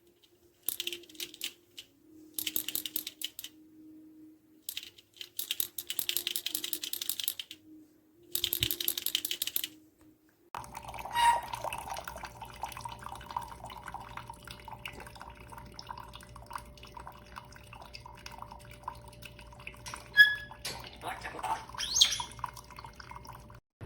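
Drip coffee maker brewing: water hissing and sputtering in bursts. About ten seconds in, this gives way to a steady hum with small clicks and a couple of sharp knocks.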